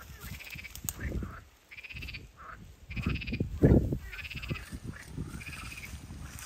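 A frog calling over and over, short pulsed calls a little more than a second apart, with a few low thuds, the loudest a little past the middle.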